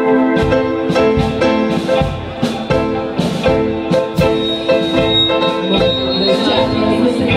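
Instrumental backing music: sustained keyboard chords over a steady beat, about two strokes a second.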